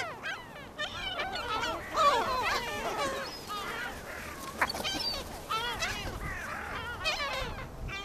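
A flock of gulls calling, many short overlapping cries at once.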